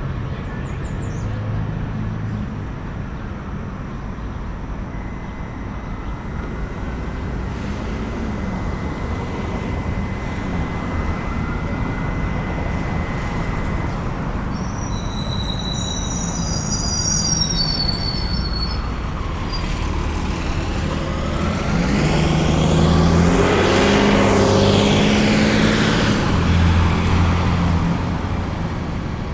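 Road traffic with engines running and vehicles passing, a high brake squeal about halfway through, and a heavy vehicle accelerating loudly past near the end.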